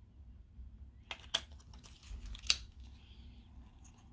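Lipstick packaging being opened by hand: light rustling of the box and wrapping with three sharp clicks, the last and loudest about two and a half seconds in.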